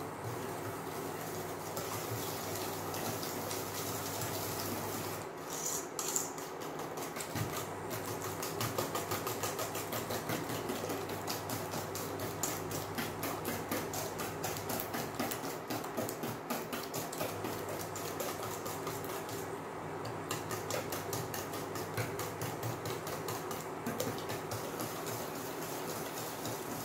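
Wire whisk beating eggs and sugar in a stainless steel bowl: fast, steady strokes clicking and scraping against the metal, picking up about five seconds in.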